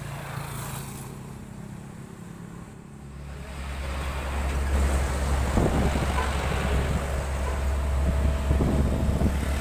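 A heavy diesel bus draws near and passes close by. A deep engine rumble comes in about three seconds in and grows loud, with road and wind noise over it.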